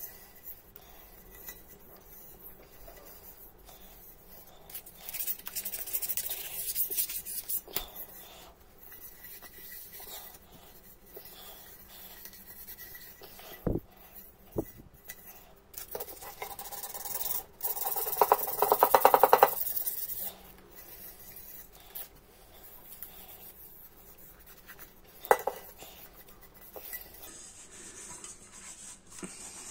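A copper bowl being rubbed and polished: intermittent scraping and rubbing with a few sharp handling knocks, and a louder, harsh rasping stretch about 16 to 20 seconds in.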